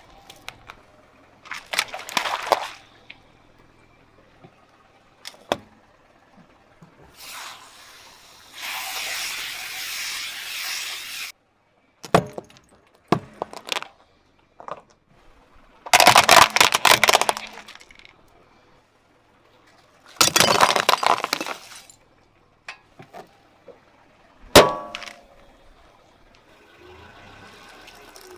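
A car tyre rolling over and crushing brittle objects, glass vials and ceramic among them: a series of separate bursts of cracking, crunching and glassy clinking, one per object, with a steadier crackle lasting a few seconds in the middle and a single sharp crack near the end.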